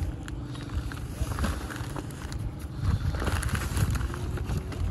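A sack of cement being tipped out onto a heap of sand and gravel: a soft hiss of pouring powder and rustling of the sack, in two spells, over a low rumble and a few small knocks.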